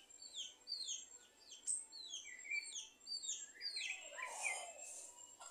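Sabiá-gongá (greyish saltator) singing: a rapid series of clear whistled notes, each sliding downward, about two a second, with a lower warbling phrase about four seconds in.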